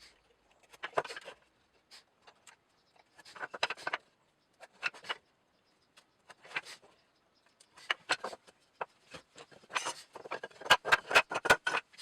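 Short bursts of woodworking noise, scraping and rubbing with knocks and clicks, broken up by dead gaps. A quick run of sharp clicks and knocks comes near the end.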